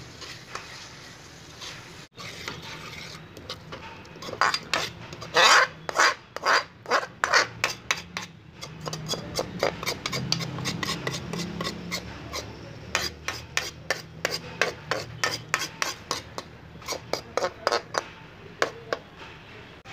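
A metal spatula scraping and stirring potato chunks in thick masala around a metal kadai, in quick repeated scrapes that start about four seconds in.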